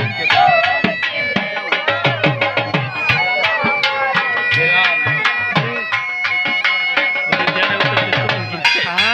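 Two dhol drums beating a dance rhythm, their deep strokes bending in pitch, under a shehnai playing a held, reedy melody.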